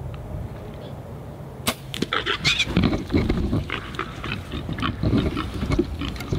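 A bow shot: one sharp snap of the bowstring and arrow about two seconds in. It is followed by wild hogs grunting and rustling through dry brush as they are startled.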